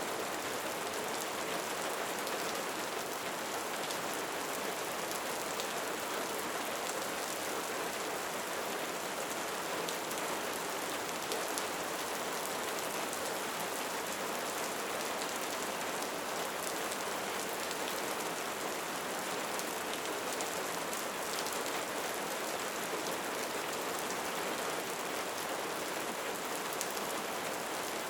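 Steady rain falling: an even, unbroken hiss with many fine drop ticks.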